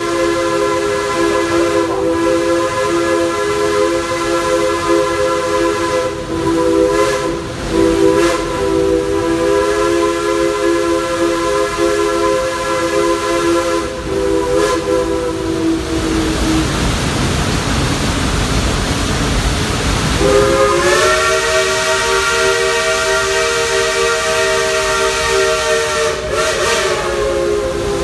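Steam locomotive's chime whistle, several pitches sounding together as a chord, heard from a passenger car behind the engine: one very long blast, then a gap of a few seconds filled with the train's running noise, then a second long blast that starts with a slight upward bend in pitch.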